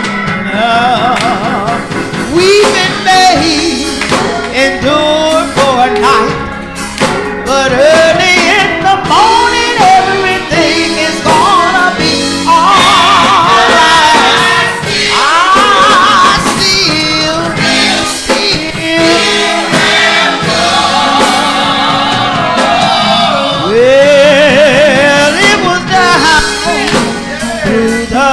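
Gospel song sung live with choir, the lead voice holding wavering, ornamented notes and runs over instrumental accompaniment.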